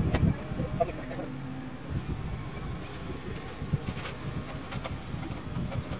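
Mobile crane's engine running as it swings a suspended modular-home section, with wind buffeting the microphone.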